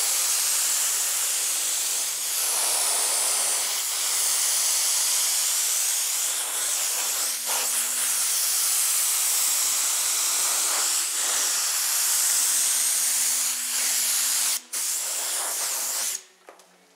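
Air spray gun hissing steadily as it sprays U-POL Raptor textured coating. The hiss breaks off for a moment near the end, resumes briefly, then cuts off about a second before the end.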